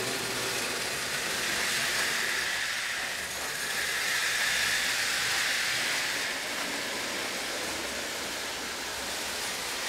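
HO-scale slot car trucks pulling long strings of hopper trailers around plastic slot track: a steady high whirring of small motors and wheels on the track, swelling slightly about two seconds in and again around five.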